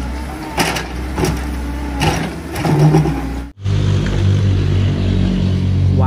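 Compact hydraulic excavator's diesel engine running steadily, with several sharp knocks as it digs rocky soil. The sound breaks off for a moment about three and a half seconds in, then the engine drone carries on.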